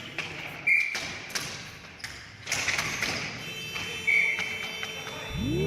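Sharp knocks and thuds of ball hockey play: sticks striking the ball and the ball hitting the boards, with two brief high squeaks. A rising horn-like chord starts in the last half-second.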